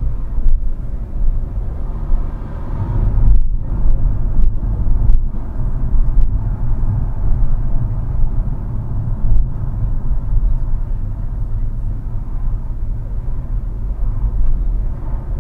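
Low, steady rumble of a car's engine and tyres at a slow town speed of about 20 mph, heard inside the cabin through a dashboard camera's microphone.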